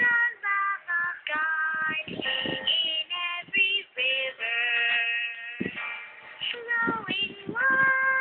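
Background song with a high singing voice carrying the melody, holding one long note about halfway through and starting another near the end.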